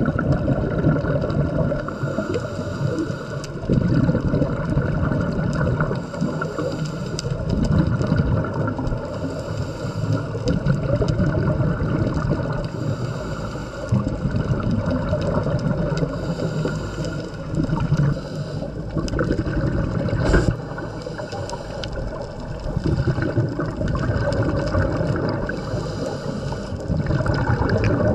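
Muffled underwater recording full of gurgling water and bubbles, swelling in surges every few seconds, typical of scuba divers' regulator exhalations.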